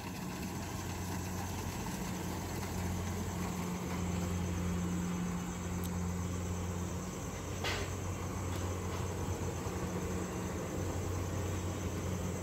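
Kubota DC-68G crawler combine harvester running steadily while harvesting paddy: a constant low engine hum with machinery noise over it, and one brief sharp click about two-thirds of the way through.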